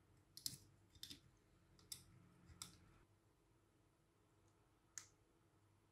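Near silence broken by a few faint, short clicks and taps of small hard objects: a cluster in the first three seconds and one more near five seconds. These come from handling a phone and small repair tools on a workbench.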